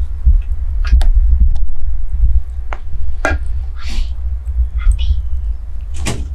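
Stuffed peppers simmering in broth in a cast-iron pot over a wood fire, stirred with a wooden spoon: scattered soft pops and clicks over a steady low rumble.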